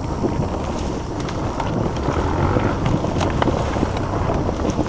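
Dirt bike engine running steadily at low revs under the rider, with wind on the microphone and a few faint knocks from the trail.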